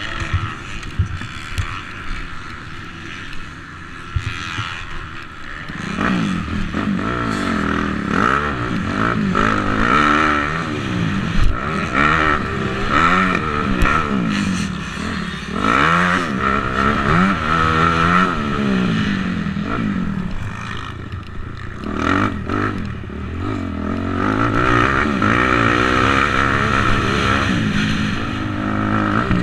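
250cc motocross bike engine at speed on a dirt track, rising and dropping in pitch again and again as the throttle is opened and closed. The first few seconds are quieter, with clattering and scraping, before the engine comes up loud about six seconds in.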